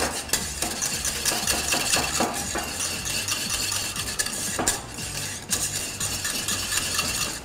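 Wire balloon whisk beating mashed potato in a saucepan, its wires scraping and rattling against the pan in rapid strokes as the seasoning is mixed in.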